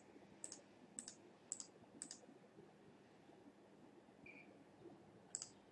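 Faint computer mouse clicks: a run of single clicks about every half second in the first two seconds, then a quick pair near the end, over a quiet room.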